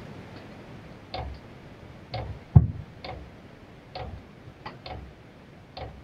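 Chinese diesel heater's fuel dosing pump ticking about once a second during the startup sequence, metering diesel to the burner before it lights. One tick about two and a half seconds in is louder and deeper than the rest.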